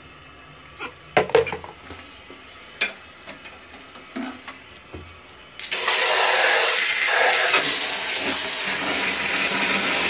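Plastic vacuum-cleaner parts knocked and clattered in a tub. About halfway through, a handheld bidet sprayer starts, its water jet hissing steadily onto the parts and the tub.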